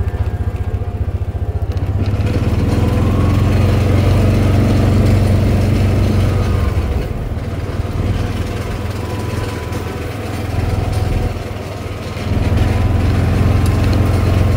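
Small utility vehicle's engine running as it drives. It pulses low at first, speeds up about two seconds in, eases off in the middle and picks up again near the end.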